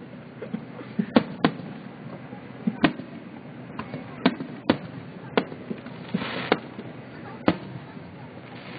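Fireworks shells bursting overhead: about seven sharp bangs at irregular intervals, over a steady murmur of background noise. The sound is thin and band-limited, as heard through a phone's live stream.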